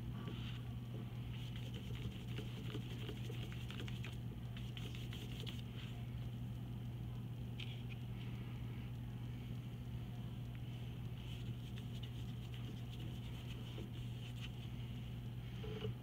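Faint, intermittent scratchy swishes of a bristle paintbrush stroking paint onto paper and mixing it on a paper plate, over a steady low hum.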